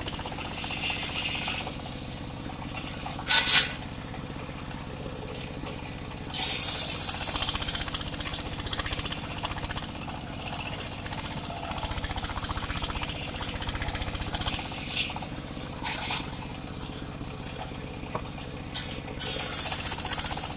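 Engine-driven mobile circular saw running steadily, with short, loud, high-pitched bursts of noise as the blade cuts through mahogany. The two longest bursts last about a second and a half each: one about six seconds in and one near the end.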